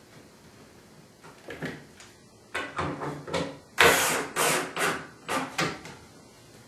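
Power drill-driver driving wood screws into the wooden slats in a string of short bursts, the loudest about four seconds in.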